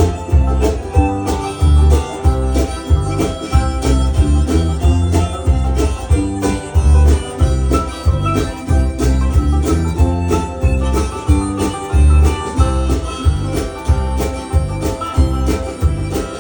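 Instrumental intro of an upbeat country song: banjo and guitar picking over a steady bass and drum beat.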